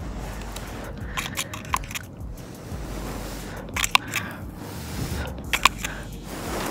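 Scattered soft clicks and scrapes from handling a soap-bubble bottle and its wand, over a quiet low background.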